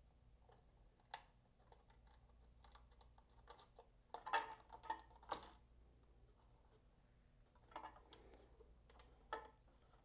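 Near silence with a few faint small clicks and taps: a hex driver working the grounding screw on a metal power supply case and the ground wire's ring terminal being handled. One click comes about a second in, a cluster a little past the middle, and two more near the end.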